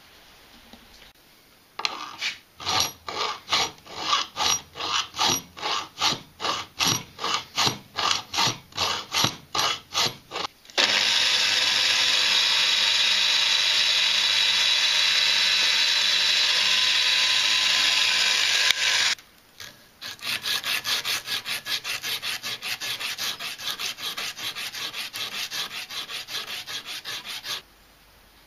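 Rhythmic strokes at about two a second for roughly nine seconds. Then a drill press runs steadily for about eight seconds while drilling a 2.5 mm hole crosswise through a steel threaded rod. After a short pause come faster strokes, about four a second, which stop near the end.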